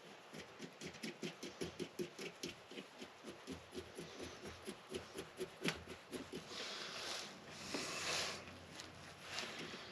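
A rapid series of light clicks, about four to five a second for some six seconds, followed by a few short rustling scrapes.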